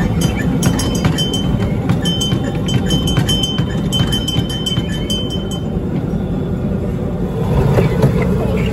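Miniature train running along its narrow-gauge track: a steady low rumble with rapid clicks and clinks of the carriage, and a thin high whine that comes and goes through the first half.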